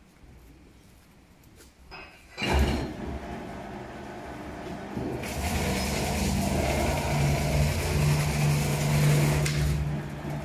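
Jigsaw-puzzle cutting press running a cutting cycle. Its motor starts with a low hum about two and a half seconds in. A loud hissing rush joins a few seconds later over a steady hum, and both die away near the end.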